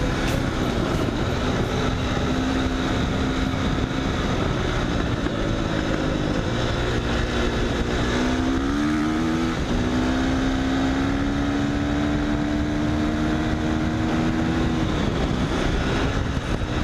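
Husqvarna FC450's single-cylinder four-stroke engine running under throttle while the bike is ridden, over a heavy rush of noise. The engine note holds mostly steady, dips and climbs back up about eight to ten seconds in, and changes again near the end.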